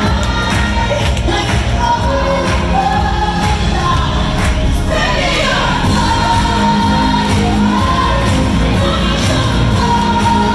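Live pop song in a large hall: a female lead singer holding long sung notes, with backing singers, a string section, piano and drums.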